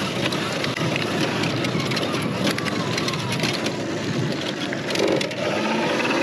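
79 Bike Falcon M electric dirt bike ridden over rough ground, with loud drivetrain noise and rattling. The rider finds the drivetrain unusually loud and not running smoothly.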